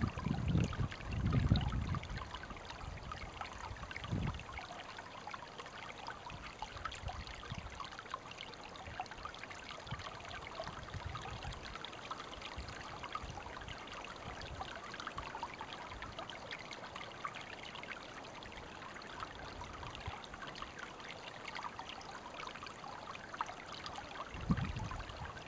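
Shallow creek flowing through water-willow, a steady fine trickling and babbling of water. Low rumbles come in the first two seconds, briefly about four seconds in, and again near the end.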